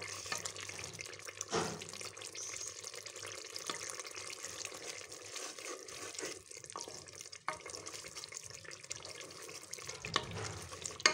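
Onion-tomato masala sizzling in oil as it is fried (bhuna) in a pressure cooker, with a spoon stirring and scraping through it and knocking against the pot now and then.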